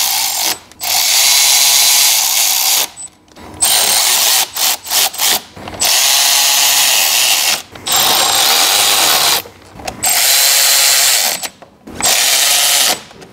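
Power tool running bolts in on an engine: a series of whirring runs of a second or two each with short pauses between, plus a few very brief blips.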